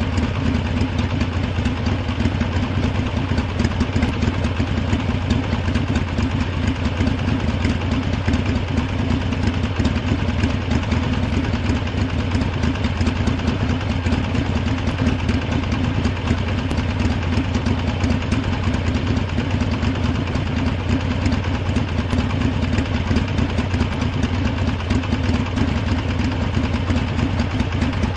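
Harley-Davidson V-twin motorcycle engine idling steadily, with an even, rapid pulsing and no revving.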